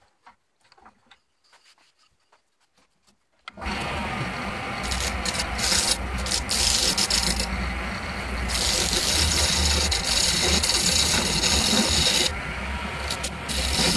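Wood lathe running with a hand-held turning tool cutting a spinning wooden blank: a steady low motor hum under a scraping, hissing cut that swells and eases as the tool bites. It starts suddenly about three and a half seconds in, after a few faint clicks.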